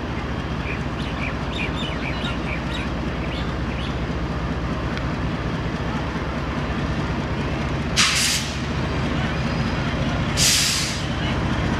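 Diesel-electric freight locomotive hauling a container train, its engine running with a steady deep drone as it approaches. Two short, sharp hisses come about eight and ten and a half seconds in.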